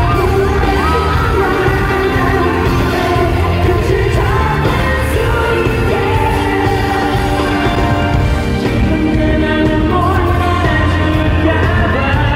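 Live K-pop song with sung vocals over a backing track with a heavy low beat, heard through a concert hall's sound system, with occasional shouts from the crowd.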